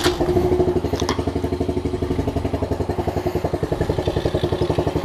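Kawasaki KLX 110 pit bike's small single-cylinder four-stroke engine, just started and idling with a fast, even beat through an open exhaust with no air filter. There is a brief click about a second in.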